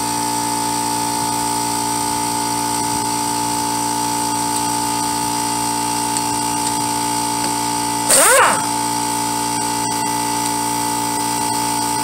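Pneumatic air gun on an air hose spinning the 14 mm hub-assembly bolts, in one short burst about eight seconds in whose pitch rises and falls. Under it is a steady hum of several unchanging tones.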